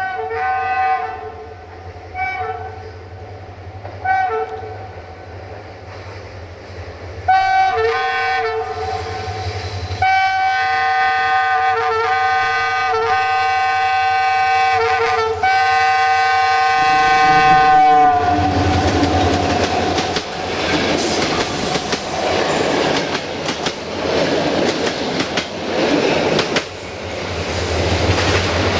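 A GM-rebuilt Class 65 diesel-electric locomotive sounds its two-tone horn: three short blasts, then a long blast and a very long one that stops at about 18 s. The locomotive and its coaches then pass close by, with engine rumble and wheels clattering over the rail joints.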